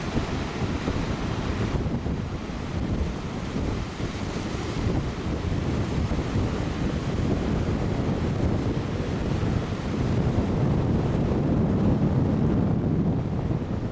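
Ocean surf breaking and washing over a rocky shore, with wind buffeting the microphone in a steady low rumble. The hiss of the surf swells in the first two seconds and again about four seconds in.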